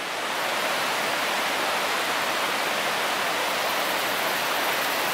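Steady rush of the La Fortuna River's flowing water, swelling up in the first half second and then holding level.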